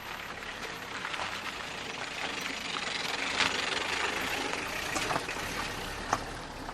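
1988 Citroen BX 19RD diesel estate driving over a rough unmade track: the engine runs under a steady noise of tyres on the loose surface, with a few sharp clicks of stones.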